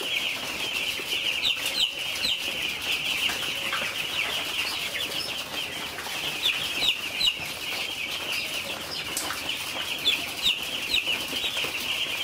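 A flock of ten-day-old chicks peeping without pause, many high cheeps overlapping, with single louder cheeps standing out now and then.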